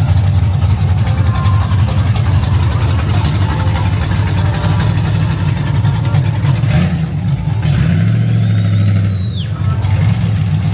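A car engine running with a deep, steady exhaust rumble that shifts in pitch about seven seconds in. A faint high whine rises and falls briefly near the end.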